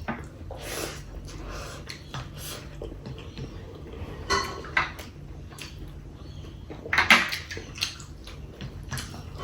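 Someone eating a plate of rice and chicken curry: scattered short clinks and scrapes of dish and cutlery. The loudest cluster comes about seven seconds in.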